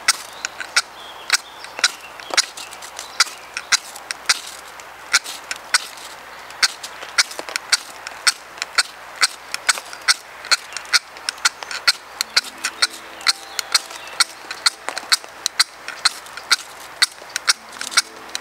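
Ferrocerium rod (fire steel) scraped hard with a striker in quick, repeated short strokes, about three a second, throwing sparks and scrapings into wood shavings to light a fire in wet conditions.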